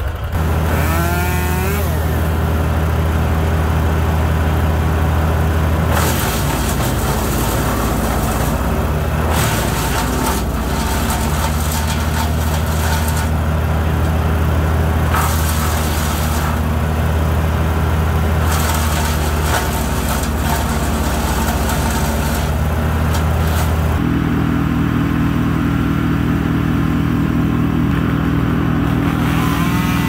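6-inch Wallenstein wood chipper running with its engine at speed while brush and branches are fed in. The engine note dips and recovers as it takes the load, over bursts of wood being shredded. The engine tone changes abruptly near the end.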